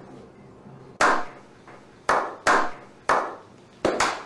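Slow hand-clapping from a small group: about six separate claps, each ringing on briefly, coming closer together near the end.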